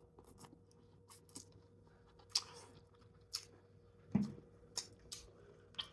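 A person chewing and eating noodles and salmon, with a scatter of short, wet mouth clicks and smacks.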